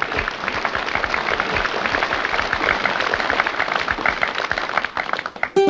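Applause: many hands clapping in a steady, dense patter, with a strummed ukulele chord coming in near the end.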